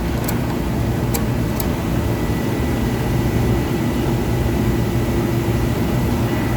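Electrical-cabinet air conditioner running with a steady mechanical hum and a faint high whine, with a few light clicks in the first two seconds. Its condenser fan motor is locked up and does not turn.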